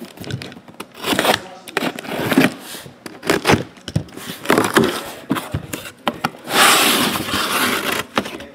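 A cardboard shipping case being handled and opened: irregular scrapes, knocks and rustles of the cardboard and its packing tape, with a louder rasping scrape lasting about a second near the end as the flaps come open.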